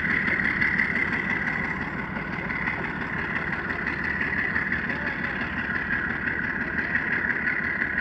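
Freight train of hopper wagons rolling away on the rails: a steady rumble with a constant high-pitched ring from the wheels, getting a little fainter in the first couple of seconds as the train recedes.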